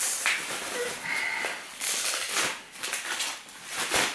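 Cardboard shipping box being torn open and handled: an irregular run of rustling, scraping and tearing noises.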